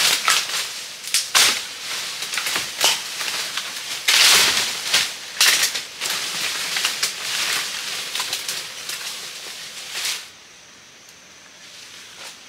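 Dry bamboo leaves and twigs crackling and snapping underfoot as someone moves through the undergrowth: irregular sharp cracks and rustles that stop abruptly about ten seconds in.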